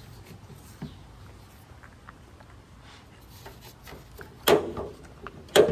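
Light clicks and handling noise, then two sharp knocks about a second apart near the end, as a car's hood is unlatched and raised.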